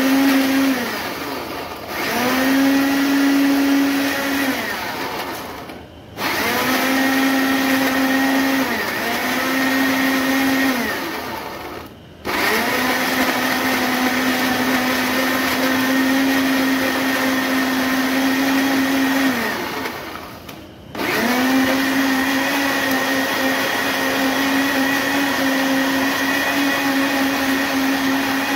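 Countertop blender grinding tomatoes, green chillies and yogurt into a wet paste. It runs in about five bursts: the motor winds down, pauses for less than a second and spins back up about four times, and holds a steady whine in between.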